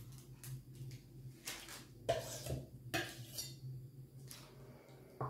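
Metal frosting spatula scraping cream cheese frosting and clinking against a dish, with sharp knocks about two and three seconds in and again near the end.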